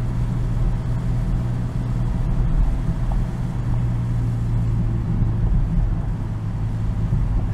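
BMW M240i's 3.0-litre B58 straight-six running at a steady, light cruise, its drone holding one low pitch over tyre and road rumble.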